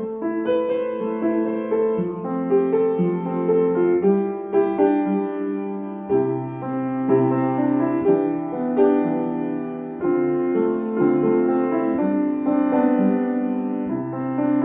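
Background music: a gentle piano melody with chords and a bass line.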